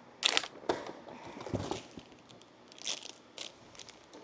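Small cardboard advent-calendar box and the plastic bag inside it being opened by hand, crinkling and crackling in irregular snaps.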